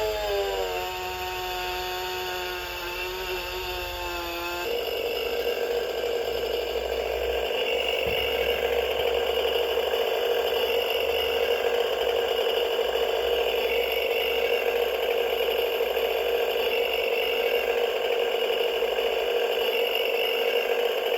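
Battery-powered STIHL toy chainsaw. A pitched electronic tone drops in pitch and stops about five seconds in; then the toy's motor whirs steadily, with its plastic chain rattling.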